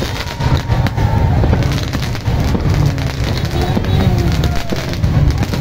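Fireworks going off in a rapid string of bangs and crackles over a constant low rumble.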